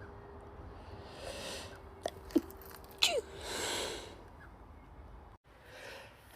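A woman sneezing: a soft breath in, then short, sharp sneezes with a falling pitch about two to three seconds in, followed by a breathy exhale.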